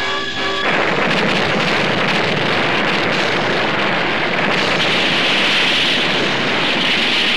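Cartoon explosion sound effect: stone blasted apart with flying debris. It is a long, loud rumbling rush of noise that takes over from the music about a second in and turns hissier in the second half.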